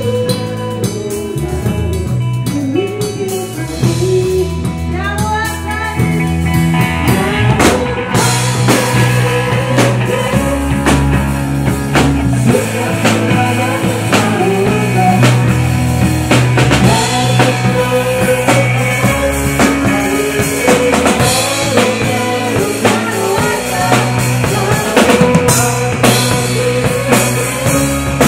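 Live rock-style band playing an instrumental passage: electric guitars, electric bass and a drum kit. The drumming fills out and the music gets louder about seven seconds in.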